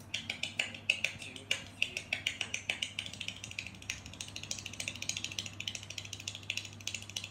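Very fast hand clapping played through a laptop's speakers: a man's attempt at the record for most claps in a minute. The claps are spaced out at first, then speed up about three seconds in to an even run of roughly a dozen a second.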